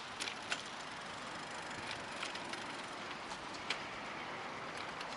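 Steady outdoor street noise with a few faint, irregular clicks.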